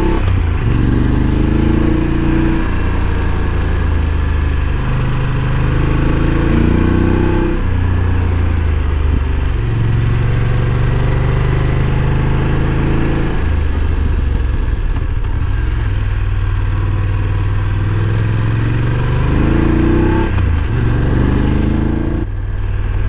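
BMW F850 GS parallel-twin motorcycle engine under way, its revs climbing and falling back repeatedly as the rider accelerates and shifts gears, over a steady rush of riding noise.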